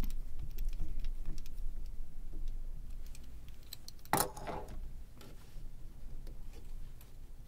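Small clicks and light rattles of a plastic CD/DVD player loader mechanism being handled and shifted by hand, with one louder clatter about four seconds in.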